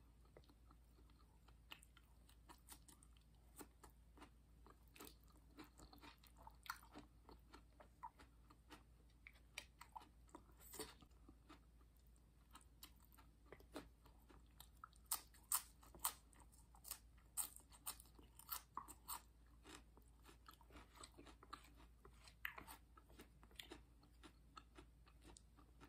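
Close-up mouth sounds of a person chewing food: faint, with many short crisp crunches and clicks, coming thicker after about fifteen seconds.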